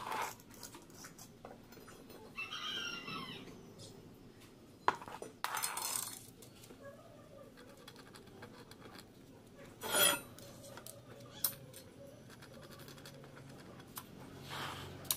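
Steel pieces being handled on a work surface: a few scattered clinks and knocks, a brief ringing scrape about two and a half seconds in, and one louder knock about ten seconds in.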